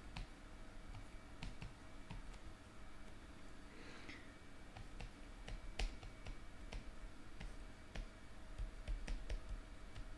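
Faint, scattered light clicks of a stylus tip tapping and lifting on a tablet screen during handwriting, irregular and a dozen or more in all, with a brief soft hiss about four seconds in.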